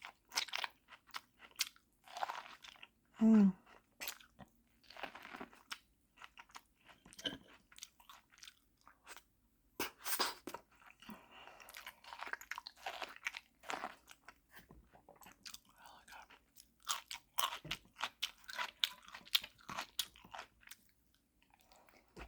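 Close-miked eating of corn on the cob: repeated bites and crunchy, wet chewing with mouth smacks, in an irregular series of crunches. A short hummed voice sound about three seconds in.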